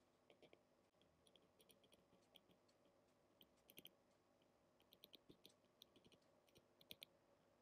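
Near silence with faint, irregular clicks of a stylus tapping on a tablet screen while handwriting.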